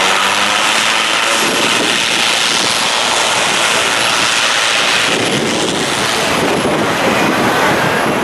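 Twin turboprop engines and propellers of an ATR regional airliner running at high power as the aircraft turns away down the runway, a loud rushing noise with wind buffeting the microphone. About five seconds in the sound turns deeper and rougher as the propeller blast comes back toward the listener.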